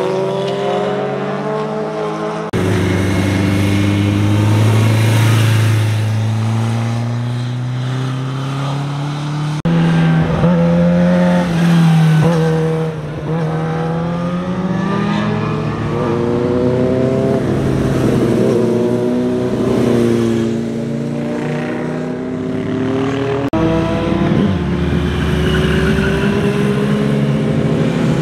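Sport motorcycles running through hairpin bends, their engines revving up and down in pitch through the turns. The sound changes abruptly three times as one pass is cut to the next.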